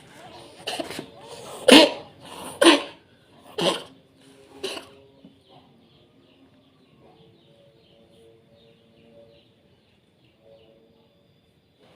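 Orange domestic cat coughing: about five harsh hacking coughs in the first five seconds, the loudest about two seconds in, then it goes quiet.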